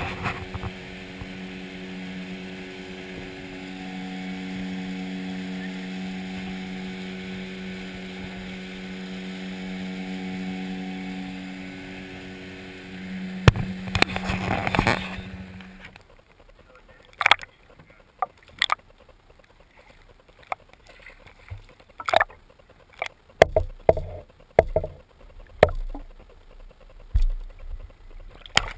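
Outboard motor, likely the 9.9 hp Yamaha on an aluminium Lund fishing boat, running at a steady speed with water noise, cutting off suddenly about halfway through. It gives way to a quiet stretch of scattered sharp knocks and clicks with water sounds.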